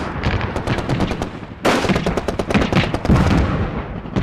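Battle gunfire: many rapid, irregular rifle and machine-gun shots. It gets suddenly louder about a second and a half in.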